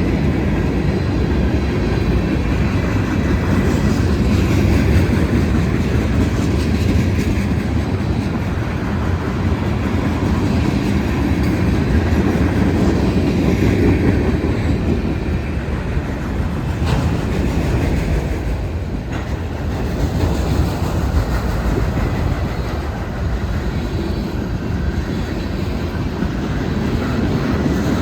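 Union Pacific freight train rolling past at trackside: a steady, loud rumble of steel wheels on rail with clickety-clack over the joints. A single sharp click comes about seventeen seconds in.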